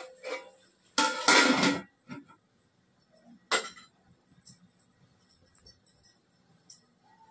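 Metal skimmer ladle and stainless steel pots clinking and clattering: a few sharp clinks at the start, a louder clatter lasting most of a second about a second in, and one clank about three and a half seconds in, then only light ticks.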